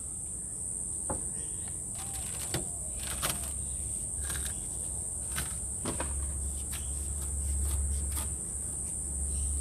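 Steady high-pitched drone of insects, crickets or cicadas, with scattered light clicks and knocks.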